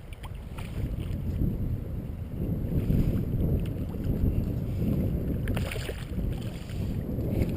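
Low, steady rumble of wind buffeting the microphone over flowing river water, with a few faint clicks.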